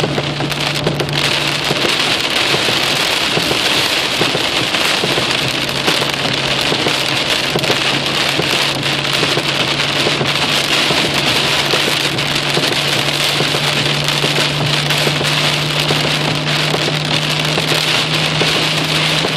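Heavy rain falling steadily and hard, with a constant low hum under it.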